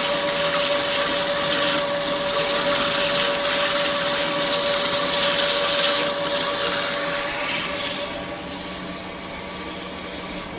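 KASTO HBA 420 AU automatic horizontal band saw running, a steady mechanical noise with a held whine; it grows quieter from about six seconds in.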